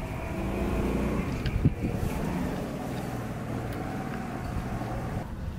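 A motor engine running steadily in the background, its low hum stopping abruptly near the end, with a faint click or two.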